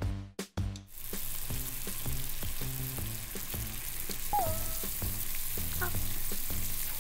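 Sugar syrup for tanghulu boiling in a pot, a steady sizzling bubbling that starts about a second in, over background music with a steady beat.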